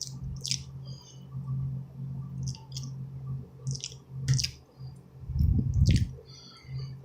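A few scattered, sharp clicks of keys pressed on a slim Bluetooth keyboard, with a louder low rumble of handling about five seconds in, over a steady low hum.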